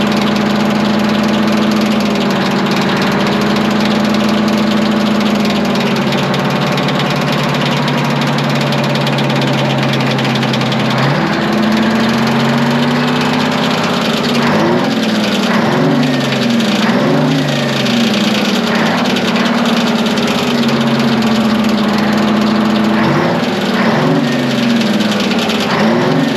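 Twin-turbo Detroit Diesel 12V71 two-stroke V12 engine running steadily, then its speed rising and falling several times from about halfway through.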